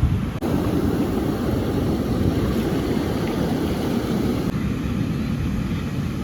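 Steady low rumbling outdoor noise with no voices, changing abruptly twice where the footage is cut.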